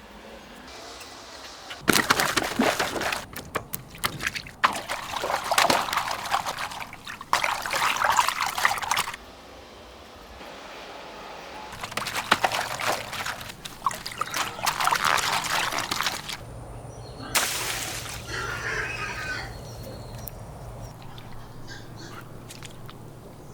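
Water gushing and splashing from a giant water-filled carrot toy, in several loud surges of a few seconds each, the last starting sharply and fading away.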